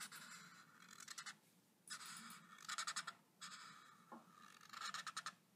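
Black marker pen drawing a spiky zigzag line, heard as faint scratching. It comes in three strokes, each ending in a quick run of short scratches as the pen zigzags.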